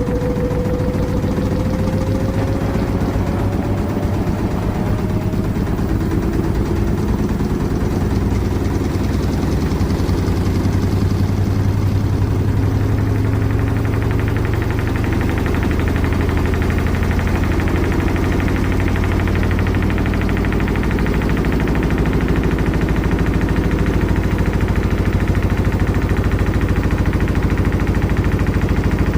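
Washing machine running, a loud steady mechanical hum and rumble with a rapid vibration; a whine rises slightly in pitch over the first few seconds.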